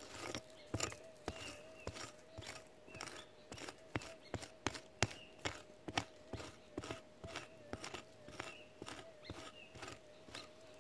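Prospecting pick chopping and scraping into hard clay soil about twice a second, digging out a metal detector target. Under the strikes runs the steady threshold hum of a Minelab SDC 2300 metal detector.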